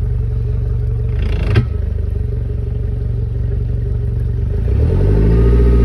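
Mercury boat engine idling steadily, with a single sharp knock about a second and a half in. Near the end the engine is brought up above idle, rising in pitch and getting louder.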